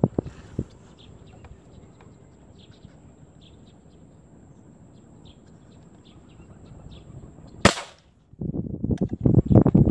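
Quiet outdoor background with faint, scattered high bird chirps. A single sharp crack comes about three-quarters of the way through, then a run of loud, choppy low thumps and rumbles.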